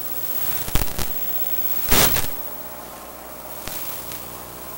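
Radio static from a cheap wireless spy camera's link: a steady hiss and buzz, broken by two sharp cracks about a second in and a louder burst of crackle around two seconds, with faint ticks later.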